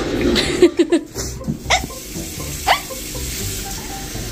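Pork belly sizzling as it cooks, over soft background music, with a few brief sharp sounds.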